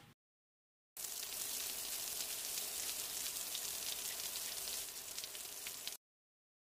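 Recorded sound of steady rain: an even hiss of falling rain with fine patter. It starts abruptly about a second in and cuts off sharply near the end.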